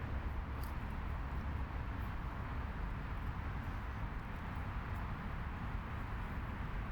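Steady outdoor background noise, a low rumble under a soft hiss, with a few faint small ticks.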